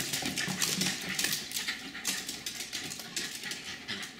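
Jack Russell terriers' claws clicking and tapping rapidly and irregularly on a hardwood floor as the excited dogs scamper about.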